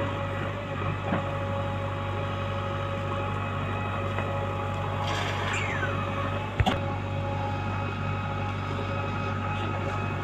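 JCB backhoe loader's diesel engine running steadily. A short falling whistle comes about five seconds in, and a single sharp clank a little later.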